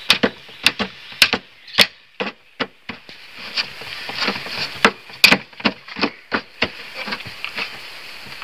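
Sharp, irregular taps and knocks, a few a second, from hands working on the scrap refrigerator box while its holes are patched with M-seal epoxy putty. There is a quieter gap about two to three seconds in.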